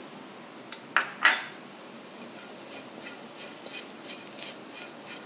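Perforated metal spatula scraping and clinking against a metal wok while a dry onion-and-spice fry is stirred. Two sharper clinks about a second in, then lighter, irregular scraping.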